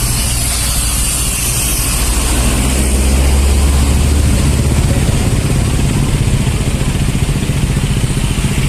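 Tour bus diesel engine running close by, a low rumble that grows louder about three seconds in and then eases as the bus pulls out.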